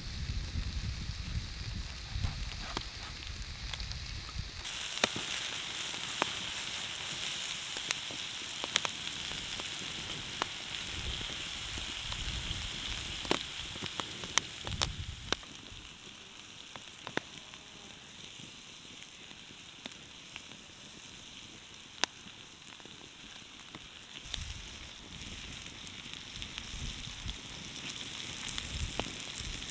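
Meat and sliced vegetables sizzling on a hot steel griddle plate over a wood fire, with scattered pops and crackles. The sizzle softens about halfway through.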